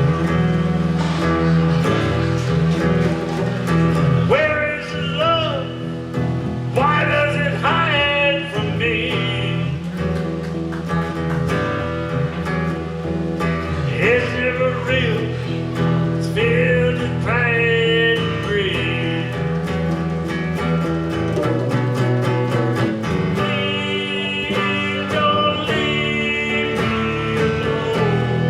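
Live country music instrumental break: acoustic guitar strumming under a lead melody line that slides and bends in pitch.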